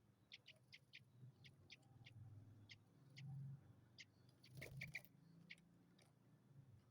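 Young yellow-vented bulbul (trucukan) chick calling: short, high chirps repeated at uneven intervals, about a dozen in all. A brief clatter of several sharp clicks comes a little past the middle.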